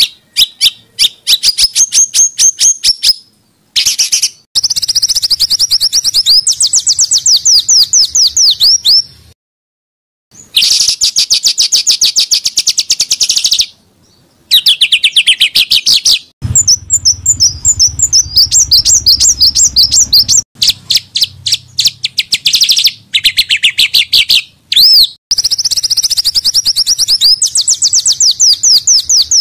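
Small songbirds singing in rapid, dense bursts of repeated high notes and trills, the fast-fire phrases known as 'tembakan'. The phrases stop and start abruptly, with short silences between spliced recordings.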